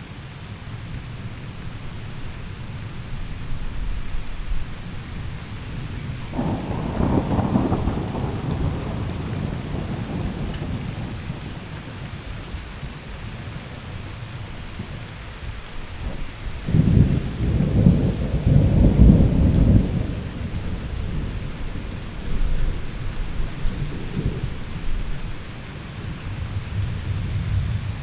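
Heavy rain falling steadily with rolling thunder: a rumble about a quarter of the way in, a louder, longer roll of thunder past the middle, and a shorter rumble near the end.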